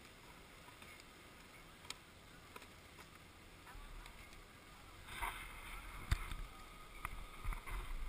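Snowboard binding straps being buckled and ratcheted by hand: scattered sharp clicks, the loudest about six seconds in, with rustling of gloves and clothing. A low rumble builds from about halfway.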